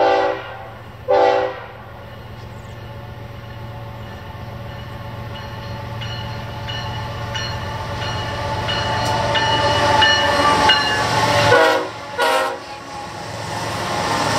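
A BNSF manifest freight train's diesel locomotives approach and pass. The horn sounds two short blasts, then the engines and rolling wheels grow steadily louder, two more short horn blasts come about twelve seconds in, and the locomotives go by close at the end.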